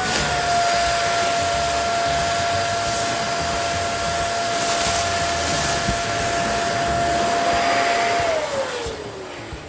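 Electric balloon inflator pump running steadily with a constant whine and a rush of air, blowing up a balloon. Near the end it is switched off: the whine glides down in pitch and the sound fades as the motor winds down.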